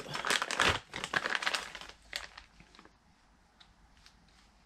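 Plastic parts bag crinkling and rustling as it is handled and checked for parts. The crinkling is dense for about the first two seconds, then thins to a few light ticks and dies away.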